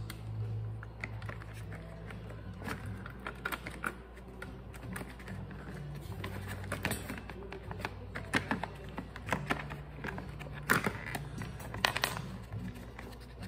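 Small metal hardware being handled: scattered clicks and clinks of bolts, washers and cable ring terminals on battery terminals, with a couple of sharper clinks near the end, over a low steady hum.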